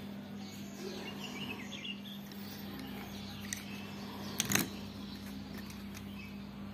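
A short clatter of wooden pastel pencils knocking together as they are handled, about four and a half seconds in. Under it runs a steady low hum, with a few faint bird chirps near the start.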